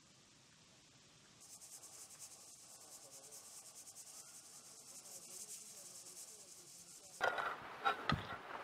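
Steady high hiss with fine crackling from a closed pressure cooker steaming over a wood fire, starting about a second and a half in. About seven seconds in it gives way to louder sharp knocks and clatter.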